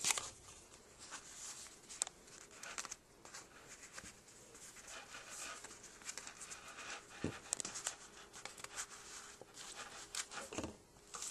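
Faint rustling and light, irregular clicks of paper pages and a card tag being handled and turned in a handmade Coptic-stitch book.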